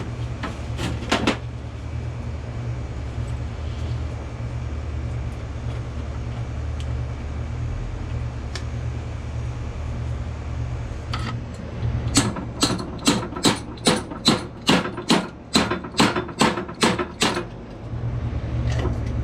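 Hammer blows on a seized air-compressor part: a fast, even run of about fifteen sharp metal knocks, roughly three a second, in the second half, with a steady low hum underneath.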